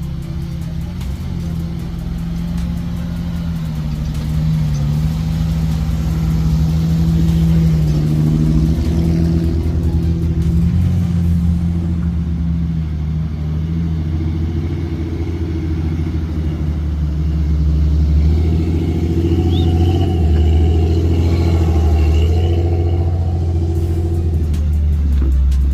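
A 4x4 vehicle's engine running steadily while driving, with music playing over it.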